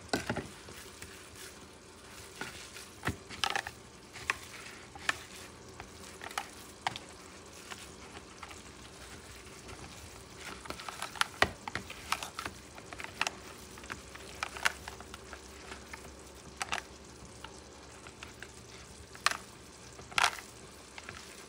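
Hands squeezing and kneading water-soaked low-carb bread in a plastic bowl, working it toward a paste: irregular wet squishes and short clicks against the bowl, over a faint steady hum.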